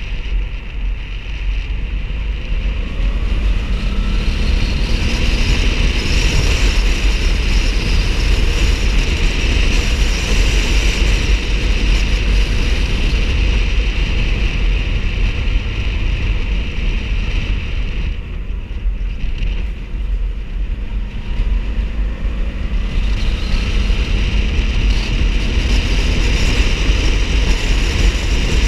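Riding motorcycle heard through its rider's camera microphone: heavy wind rumble on the mic over the engine running, its pitch rising and easing now and then with the throttle. The noise drops for a moment about two-thirds of the way through.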